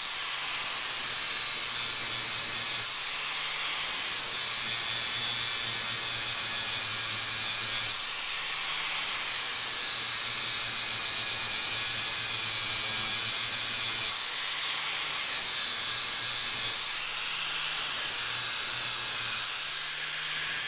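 Angle grinder running with a steady high whine while grinding metal on a bench vise body; its pitch sags under load and rises again several times as the disc eases off the work.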